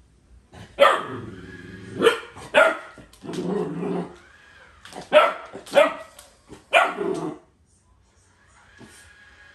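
Newfoundland puppy barking, about seven loud, sharp barks with one longer, lower one among them, stopping about two seconds before the end.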